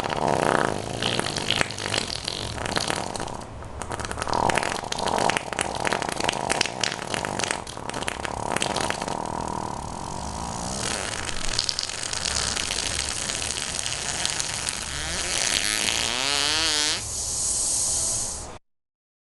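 Wet, sputtering fart sounds packed with crackling pops, going on without a break. Near the end a longer fart wavers up and down in pitch, then the sound cuts off suddenly.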